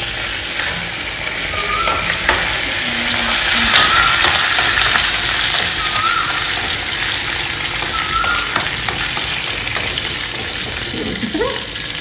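Tempering of mustard seeds, cumin, chana dal and dried red chilli sizzling in hot oil in a pan: a steady frying hiss with scattered light clicks.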